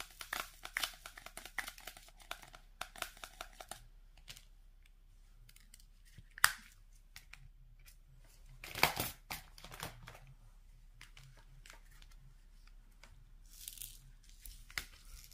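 Rapid small clicks and taps of a diamond-painting pen placing resin drills on the canvas, then a single sharp click. About halfway through and again near the end, plastic film on the canvas crinkles and rustles as a hand and arm brush across it.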